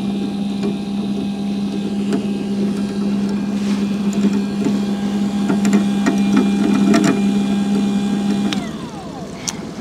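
Big Jon electric downrigger motor running steadily as it lets the weight down to depth, then winding down in pitch and stopping about a second before the end.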